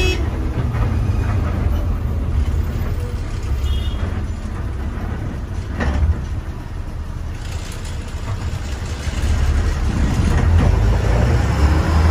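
KSRTC Sarige bus under way: a steady low rumble of engine and road noise, with a sharp click about six seconds in and the rumble growing louder near the end.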